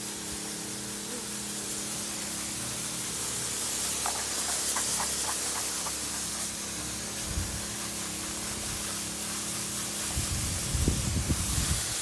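Garden hose spray nozzle jetting water onto freshly poured exposed-aggregate concrete in a steady hiss, washing off the sugar-retarded surface paste to bare the stones. A few low thumps near the end.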